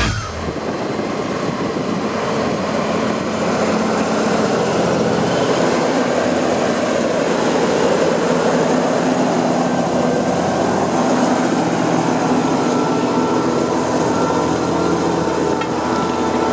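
Fendt 936 Vario's six-cylinder diesel engine running steadily while the tractor ploughs, a low even hum under a broad hiss.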